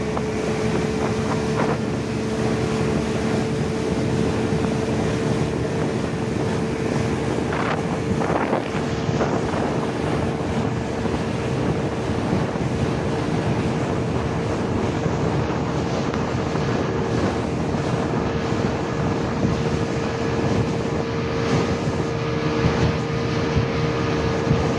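Speedboat's outboard motor running steadily at speed, a constant hum, under wind buffeting the microphone and water rushing past the hull.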